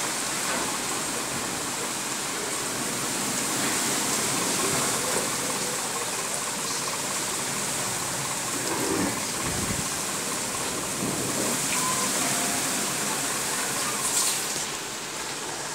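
Heavy wind-driven rainstorm: rain falling in a steady, dense hiss while strong wind blows.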